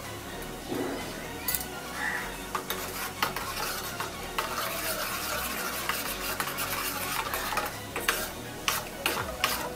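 A steel spoon stirring in a small stainless-steel tadka pan, clicking against the metal sides, while mustard and cumin seeds sizzle in hot oil.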